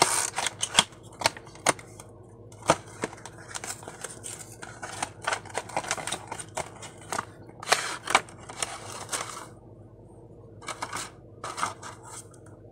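A small cardboard box and its clear plastic insert being opened and handled: irregular rustling, scraping and sharp clicks of packaging in the hands.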